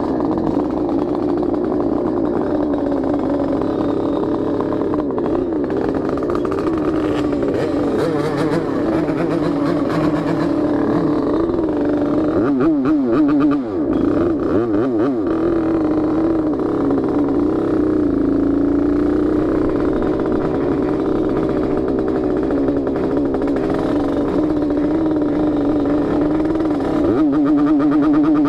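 Yamaha RX King's single-cylinder two-stroke engine running, its exhaust note steady with small rises and falls in pitch and a brief dip and wobble about halfway through.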